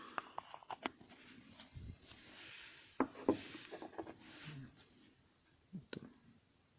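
Faint scattered knocks and short scraping rubs of wood, with a few sharper knocks about three seconds in and again near six seconds.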